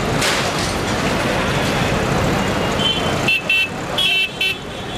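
Backhoe loader running and breaking up a shop front, a dense wash of machine and demolition noise. From a bit under three seconds in, four or so short, high horn toots sound.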